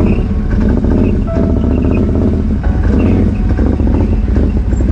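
ATV engine running loud, its revs rising and falling.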